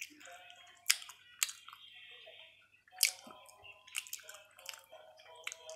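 Close-up chewing of a chocolate bar: wet mouth sounds broken by irregular sharp clicks, over a faint steady hum.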